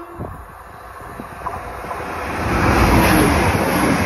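Passenger train passing close by on the track. Its rumble and wheel noise build steadily and are loudest about three seconds in, with some clickety-clack from the wheels over the rails.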